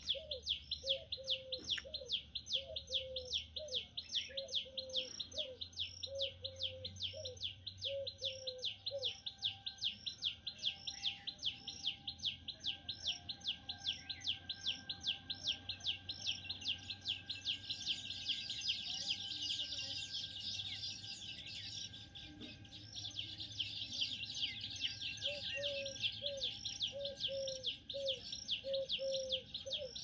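Birds calling: a high chirp repeats steadily about three times a second throughout, while a lower call note repeats in an even series for the first third and again near the end.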